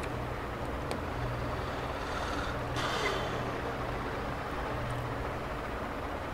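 Steady room hum and hiss, with a couple of faint ticks and a brief swishing rustle about three seconds in.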